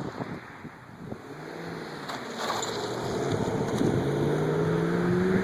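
A motor vehicle's engine speeding up, its pitch rising slowly through the second half, under wind noise.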